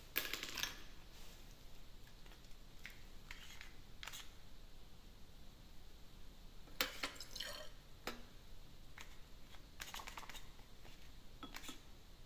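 Faint, scattered clicks and light knocks as a micropipette is worked and liquid is dispensed into glass test tubes in a rack, with a small flurry of clicks about seven seconds in.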